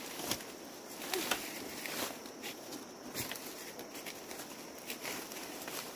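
Footsteps crunching through dry leaf litter, with brush and undergrowth rustling and crackling irregularly.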